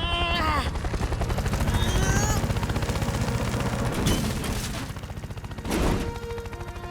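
Cartoon helicopter rotor chopping: a rapid, even low thudding that fades about five seconds in, followed by a brief rush of noise near the end.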